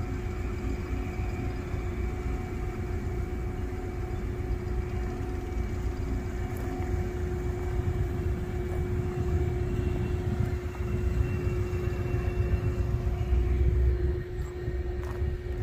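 Norfolk Southern freight train passing: a steady low rumble with a constant hum, growing a little louder toward the end, with a few sharp clicks near the end.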